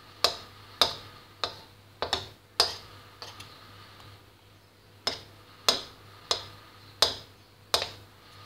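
A spoon tapping and knocking against the sides of a bowl while spreading thick homemade slime up the sides. About a dozen sharp taps come roughly every half second, with a pause of about two seconds midway.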